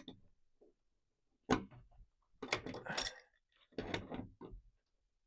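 Clicks and clinks of a tool and small metal hardware as the retaining nut of a truck-topper lock cylinder is given a last turn, in three short clusters about a second apart.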